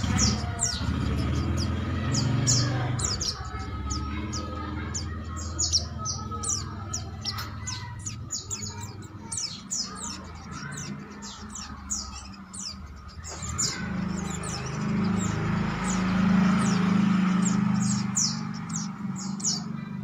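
White-eyes (pleci) chirping, a rapid run of short, thin, high notes that sweep downward, over a low steady hum that swells between about 14 and 18 seconds in.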